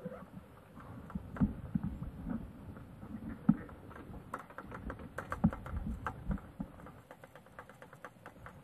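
Raindrops pattering irregularly on a fishing umbrella and on the camera right by the microphone: scattered sharp taps and dull knocks, busiest in the middle.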